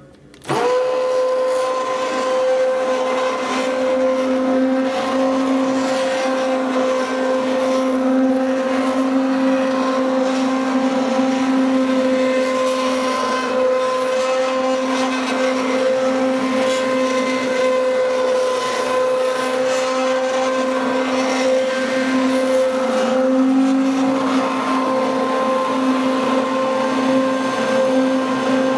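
Stick blender switched on about half a second in, then running steadily with an even motor whine as it blends cream soap batter of oils and lye solution toward trace.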